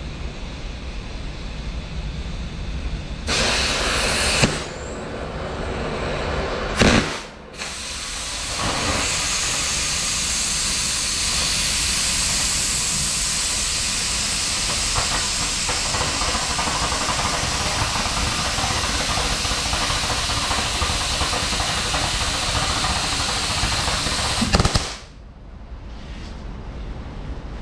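Oxy-fuel track cutting torch hissing steadily as its cutting jet burns through the steel edge of a loader bucket. The hiss swells and breaks off a few times in the first several seconds, then holds steady and cuts off suddenly near the end.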